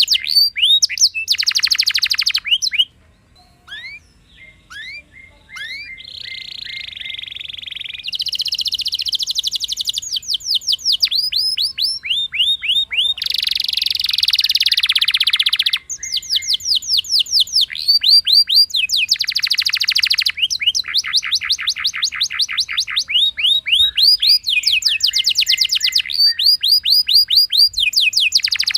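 Domestic canary singing a long, fast rolling song: runs of rapid repeated down-sweeping notes alternating with dense buzzy rolls, with a short lull about three seconds in.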